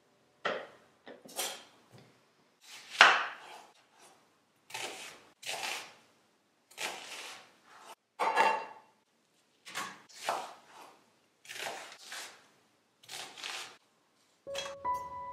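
A kitchen knife cutting an onion into thick chunks on a wooden cutting board: about a dozen separate cuts, roughly one a second. A brief clatter with a faint ring comes about eight seconds in, from the enamel bowl on the board. Piano music starts near the end.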